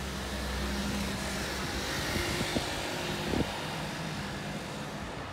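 Street traffic: a low engine hum for the first couple of seconds, then a broad rush of passing vehicles that swells through the middle.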